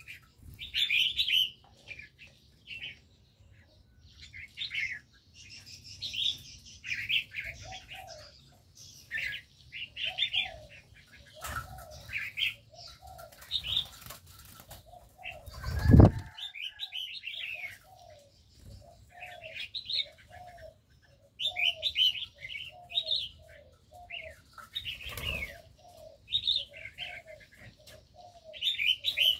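Aviary birds: bulbuls chirping repeatedly over a dove cooing in a steady string of short low notes. A loud burst of wing flapping comes about halfway through, with a second, weaker one near the end.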